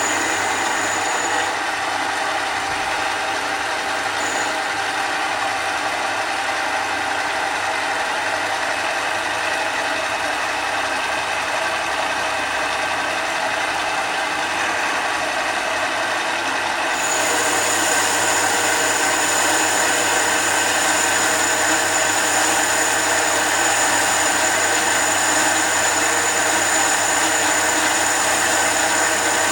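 Mini lathe running steadily with a gear clatter and motor whine. A high whine drops out near the start and comes back just past halfway, when the machine gets a little louder.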